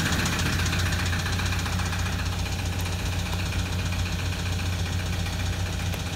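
Toyota Land Cruiser Prado 120's four-cylinder turbodiesel idling steadily at about 900 rpm, seconds after a cold start, with a knock. The owner takes the engine for nearly dead from oil starvation and believes the fault is at cylinder number one.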